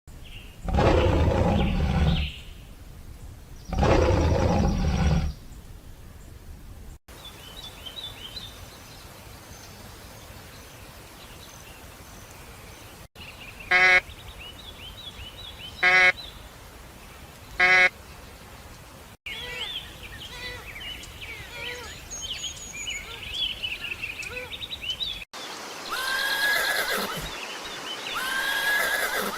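A run of different animal calls in short separate clips. First come two long, loud, low calls, then faint high chirping, then three short sharp calls about two seconds apart, more chirping, and a horse whinnying near the end.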